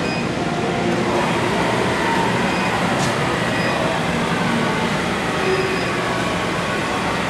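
Steady mechanical running noise of a Rottler H75A CNC honing machine as its spindle head moves sideways along a four-cylinder aluminium block, over a continuous background hum.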